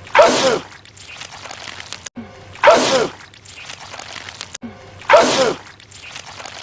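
A man sneezing loudly three times, about two and a half seconds apart. Each is the same sneeze repeated, with a falling voiced cry over a wide, hissing burst.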